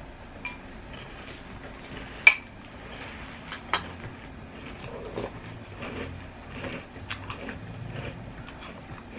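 Spoon clinking against a cereal bowl while cereal in milk is eaten: two sharp clinks, about two seconds in and again a second and a half later, the first ringing briefly, with quieter scraping and biting between.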